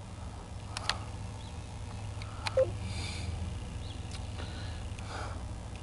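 Diesel locomotive of an approaching CSX freight train: a faint, steady low rumble, with a few sharp clicks scattered through.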